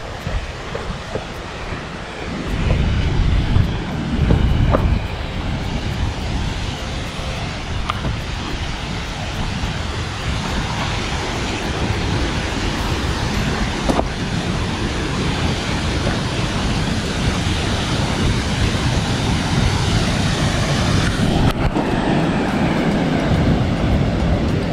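Rushing waterfall, a steady roar of falling water that grows slowly louder as it is approached, with gusts of wind buffeting the microphone about three to five seconds in.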